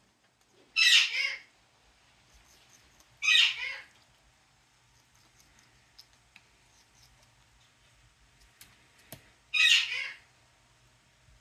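Pet parrot giving three short, loud, harsh squawks, the first two about two and a half seconds apart and the third about six seconds later.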